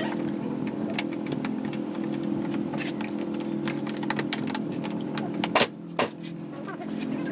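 Light clicks and small metallic clatter of hand tools being worked at a scooter's handlebar brake controls, with two sharp knocks close together late on, over a steady low hum.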